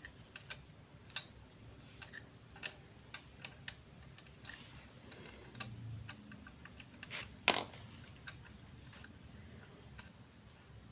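Scattered small metallic clicks and taps of parts being handled at the oil pump gear of an opened Honda Supra engine, with a sharper knock about a second in and the loudest about two-thirds of the way in.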